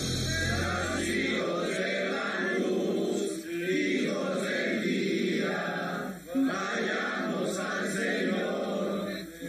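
Several voices chanting a devotional hymn in unison, in long phrases that break off about every three seconds.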